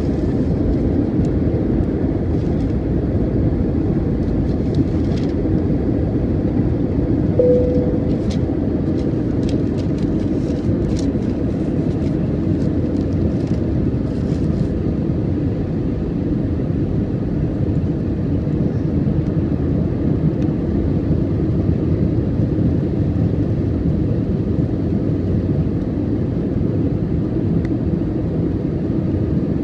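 Steady cabin noise of a jet airliner descending on approach to land: the low rumble of the wing-mounted turbofan engine and the airflow, heard from a window seat inside the cabin. A short single tone sounds about seven seconds in.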